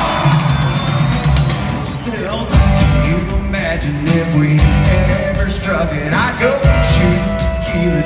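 Live country-rock band heard through an arena's PA from the audience: a steady drum beat, electric guitar and a sung lead vocal.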